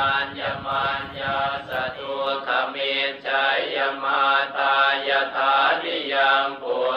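Buddhist chanting in Pali: a steady recitation with an even syllable-by-syllable rhythm on a narrow range of pitches.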